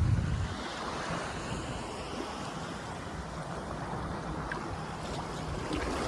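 Ocean surf washing in and out on the shore, a steady rush of water, with a short buffet of wind on the microphone at the start.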